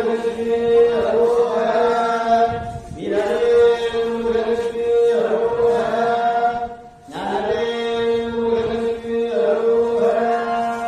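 Mantras chanted on one held, steady pitch in long unbroken phrases, with a short pause for breath about three seconds in and again about seven seconds in.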